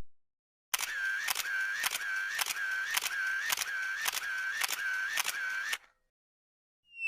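Camera shutter sound effect firing in a steady run of about ten shots, roughly two a second, each a sharp click with a brief whirr.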